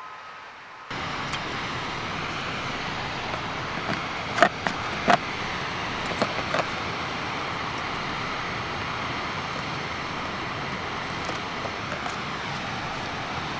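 Steady rushing outdoor background noise, with a few sharp clicks and knocks between about four and seven seconds in as the parts of a camping-stove cook pot are fitted together.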